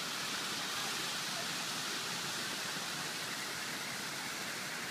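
Geyser erupting: a steady rushing hiss of spray and steam that holds even throughout.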